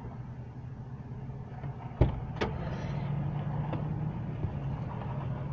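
Car engine idling with a steady low hum, heard from inside the cabin. About two seconds in comes a sharp clunk, then a few lighter knocks, as a passenger climbs into the seat.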